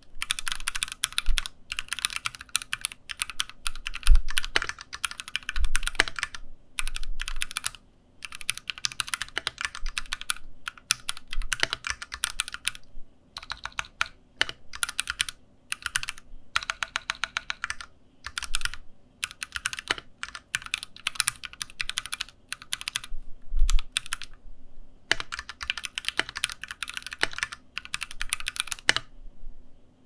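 Typing on a Keychron Q3 aluminium double-gasket mechanical keyboard with Gateron tactile switches: quick runs of keystrokes broken by short pauses, with an occasional deeper thump. The sound is firm, tight and rather high-pitched.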